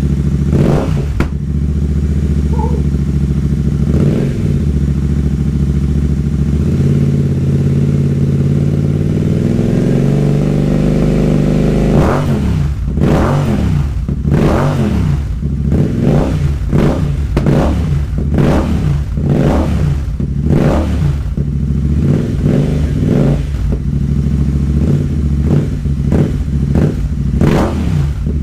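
Royal Enfield Interceptor 650's parallel-twin engine running through Enfield Precision slip-on silencers with the baffles out, sounding a lot bigger. It idles, its speed climbs slowly, then about halfway through it is blipped in a run of quick revs, roughly one a second, with a short break near the end.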